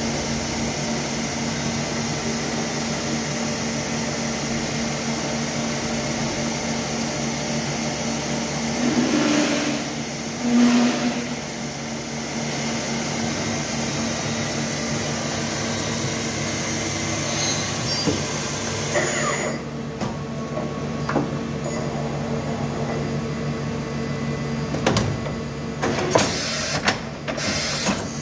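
Okuma MC-5VA vertical machining centre running: a steady electric hum with a high hiss. A louder whir swells briefly about ten seconds in, the hiss cuts off about two-thirds of the way through, and a few clicks and knocks come near the end.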